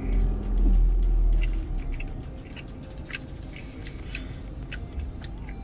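Close-up chewing of fried chicken nuggets, with scattered small crunches and mouth clicks. A deep rumble fills the first second or so.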